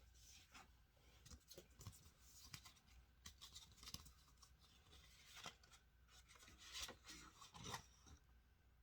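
Faint rustling, scraping and small clicks from packaging and plastic parts being handled, scattered irregularly, busiest toward the end.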